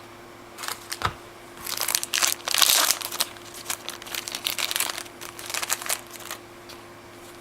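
A trading-card pack wrapper being torn open and crumpled by hand: irregular crinkling and crackling, loudest in a dense burst about two to three seconds in, then dwindling to scattered crackles.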